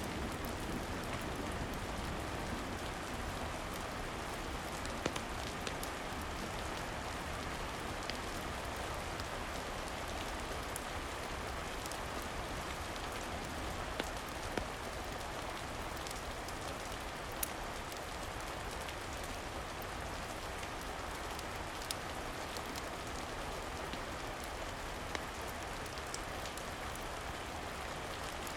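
Steady rain falling, with a few sharp ticks scattered through it.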